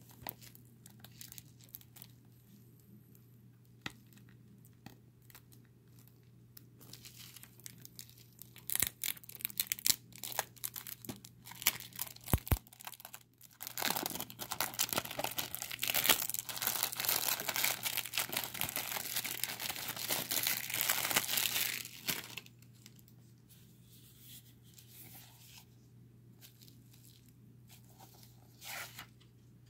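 Clear plastic shrink wrap being torn and peeled off a Blu-ray case: a few scattered crinkles and clicks, then about nine seconds of continuous crackling starting near the middle, which stops suddenly.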